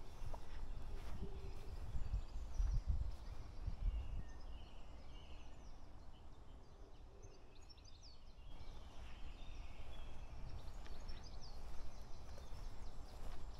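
Footsteps on a path, with low thuds in the first few seconds, and small birds giving short high chirps now and then, mostly in the second half, over a steady outdoor hiss.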